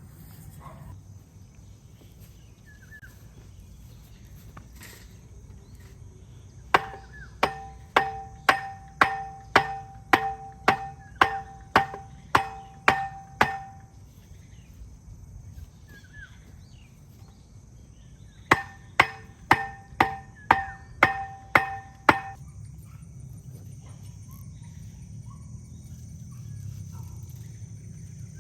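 Hammer blows on metal, each ringing briefly, in two even runs of about two and a half blows a second. The first run has about fourteen blows, then after a pause a second run of about nine. Insects drone steadily in the background.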